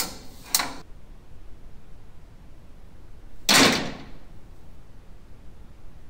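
Horse-stall door with a HAU two-point safety latch: two sharp metallic latch clicks right at the start and half a second later. About three and a half seconds in, a single loud clack as the door is let fall shut and the latch catches, ringing briefly.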